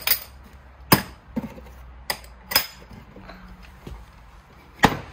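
Plastic socket-set case being opened: its metal latches snap open and the lid and tools knock, about six sharp clicks spread over a few seconds, the loudest about a second in and near the end.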